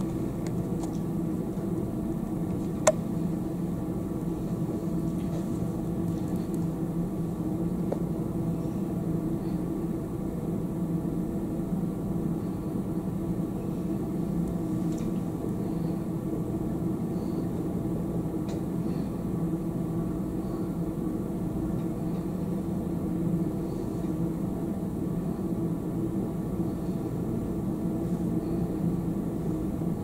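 Steady low mechanical hum with an even pitch, with one sharp click about three seconds in.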